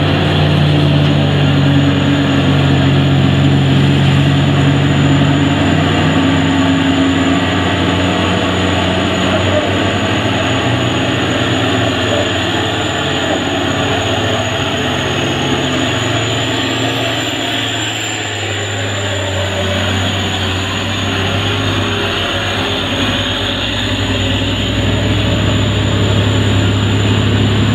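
Diesel engine of a Mitsubishi Fuso 220PS tanker truck running at low revs, a steady deep hum whose pitch shifts about halfway through.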